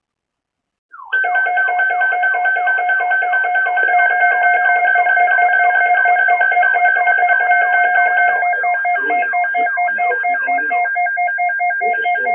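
Synthesized electronic music with a fast, repeating ringtone-like pattern over steady held tones, starting abruptly about a second in after silence.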